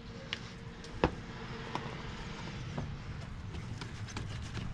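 A few light, sharp clicks and knocks, the loudest about a second in, from hands handling the metal A/C line fittings over a low steady background hum.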